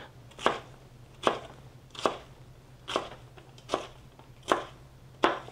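Chef's knife chopping poblano pepper into large dice on a plastic cutting board: seven even strokes, about one every eight-tenths of a second.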